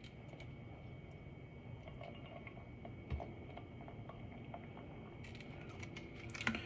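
Quiet room tone with a faint steady high whine, scattered light clicks and a soft knock about three seconds in, with a few more clicks near the end: small handling noises.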